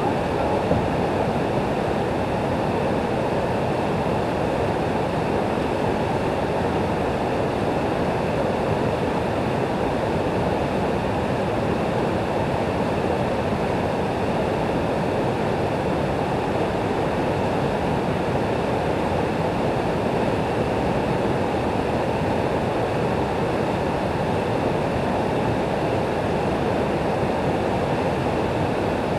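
River rapids rushing steadily over stones, a loud, unbroken wash of whitewater.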